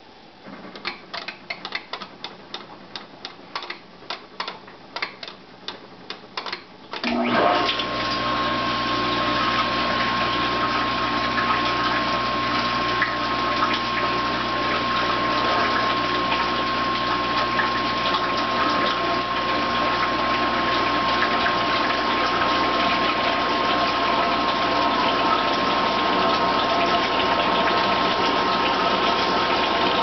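1993 KitchenAid dishwasher: a run of light clicks, then about seven seconds in its half-horsepower motor starts suddenly and the hydro-sweep wash arms spray water through the tub, a loud steady wash with a low hum and a thin steady whine.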